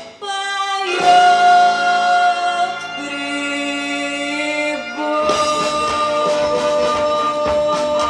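A female singer holds a long note over sustained chords from a pop-and-wind brass band. About five seconds in, the full band comes back in with a busier accompaniment and percussive hits.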